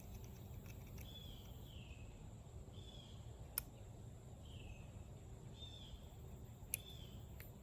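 Faint outdoor background with a bird repeating a short, falling chirp about once a second, and two sharp clicks, one about three and a half seconds in and one near the end.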